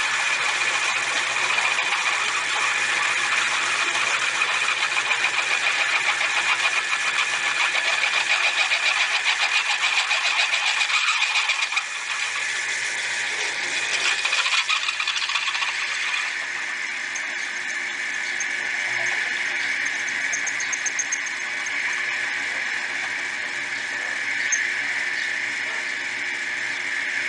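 Motor of a home-built milling machine running, with a fast even pulse for the first dozen seconds. Between about 12 and 16 seconds in the sound changes, and it then runs more steadily.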